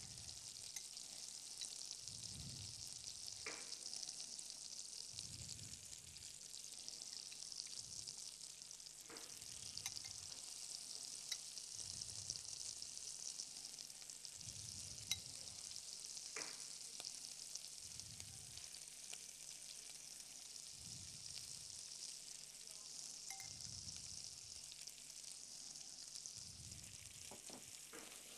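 Pieces of offal frying in foaming butter in a nonstick pan: a steady sizzle with a few sharp pops of spattering fat scattered through.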